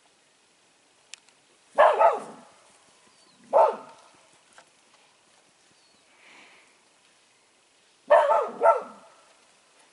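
Wheaten terrier barking: five barks in three groups, a pair about two seconds in, a single bark a second and a half later, and another pair near the end.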